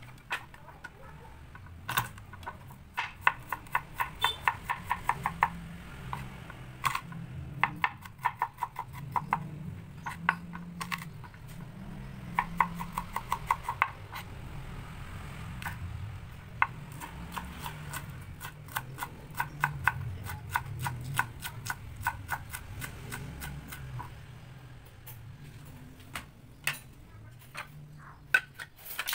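Kitchen knife chopping and mincing garlic on a plastic cutting board: runs of quick sharp taps, several a second, broken by pauses, over a low background hum.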